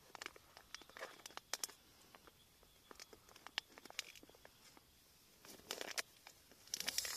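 Plastic packaging being handled: scattered small crinkles and clicks, with louder rustling bursts about five and a half seconds in and again near the end.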